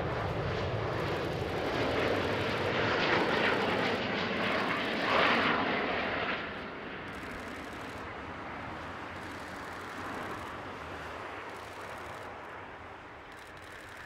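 Jet noise from an Airbus A380's four Rolls-Royce Trent 900 turbofans on final approach, loudest about five seconds in. It then drops to a quieter, steady rumble as the airliner touches down and rolls out on the runway.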